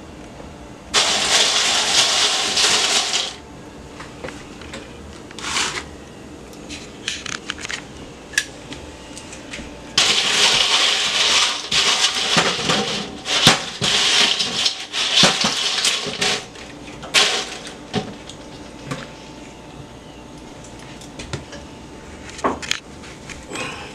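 Crisp fried tortilla chips tossed with metal tongs in a large stainless-steel bowl: dry rustling and crackling with clicks of the tongs against the steel. It comes in two long spells, about a second in and from about ten to sixteen seconds in, with a short burst just after, and quieter stretches between.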